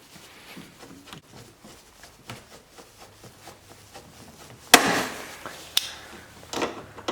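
Locking pliers clamped on a threadless metal wheel cap (push nut) being rocked back and forth on the snowblower wheel's axle: faint scraping and clicking, then a sharp loud clack a little past halfway, and two lighter knocks after it.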